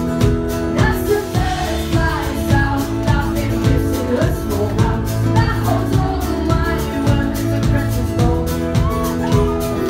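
Live band music: a woman singing over strummed acoustic guitar, bass and a steady drum beat.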